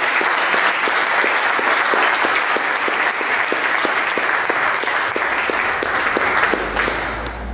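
Audience applauding, a steady mass of hand claps.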